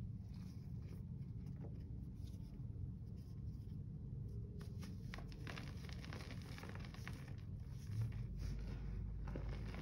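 Pressed Comet cleanser powder crumbling and crunching in a gloved hand, with soft gritty crackles that thicken about halfway through and a single louder bump near the end, over a low steady hum.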